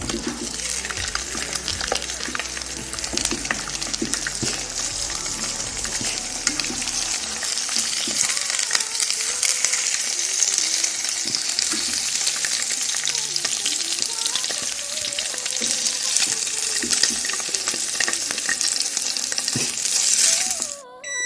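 Eggs frying in a pan, sizzling steadily, with short clicks and scrapes of a utensil stirring them. The sizzling cuts off shortly before the end.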